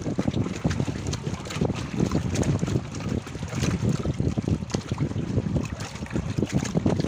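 Wind buffeting the microphone: an uneven low rumble that swells and dips in gusts.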